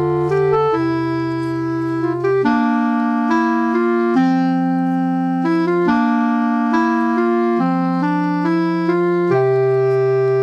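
Background music: a slow electronic keyboard tune of held notes over a bass line.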